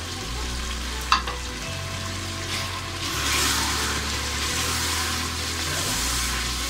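Chicken, tomatoes and freshly added ground spices sizzling in hot ghee in a metal pot while a wooden spoon stirs them through. The sizzle grows louder about three seconds in as the stirring turns the food over. There is a single sharp knock about a second in.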